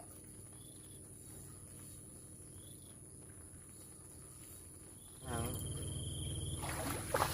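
Insects trilling steadily at a high pitch. About five seconds in, a louder low rumble joins, and a sharp click comes near the end.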